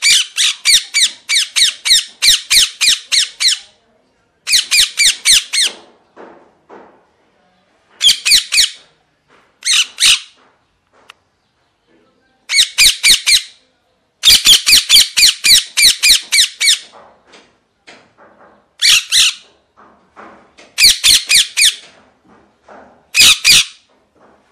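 Young parakeet squawking in rapid harsh runs of several calls a second, broken by short pauses: food-begging calls as it is hand-fed.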